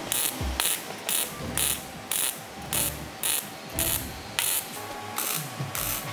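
A hand tool worked in repeated rasping strokes, about two a second.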